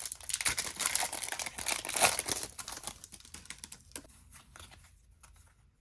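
Foil booster-pack wrapper crinkling and being torn open: a dense crackle for about three seconds, thinning to scattered ticks that fade out.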